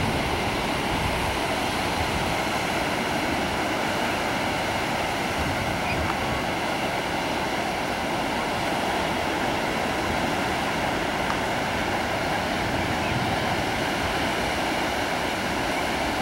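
Ocean surf: a steady, unbroken wash of waves breaking on a rocky shore, with a short click at the very start.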